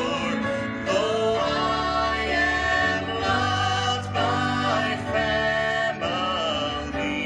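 A gospel song sung by a male soloist into a microphone, with held notes over an instrumental accompaniment that carries low bass notes.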